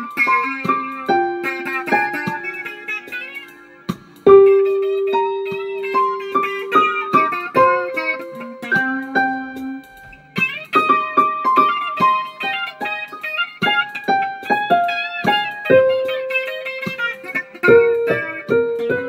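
Electric guitar played in a loose, unhurried improvisation, picking single notes and chords and letting them ring. It drops off briefly about four seconds in and again around ten seconds, each time coming back with a strong ringing note.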